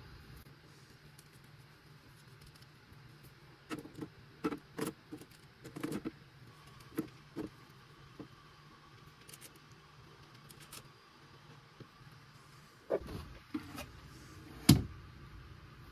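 Scattered clicks and knocks of a rifle scope in its rings being handled and set down onto the air gun's metal rail, in two bursts, with one sharper knock near the end.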